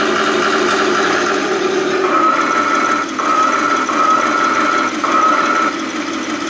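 Hydraulic pump and motor of a radio-controlled scale model John Deere excavator whirring steadily as it works its boom and bucket. From about two seconds in, a higher whine cuts in and out four times.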